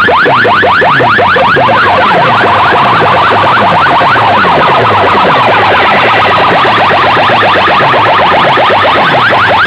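Stack of horn loudspeakers on a DJ sound box blasting a siren-like effect at very high volume: rapid falling pitch sweeps repeating several times a second, over slower falling sweeps in the bass.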